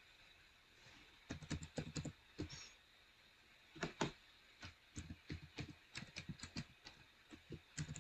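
Typing on a computer keyboard: irregular runs of short key clicks, entering a user name and password.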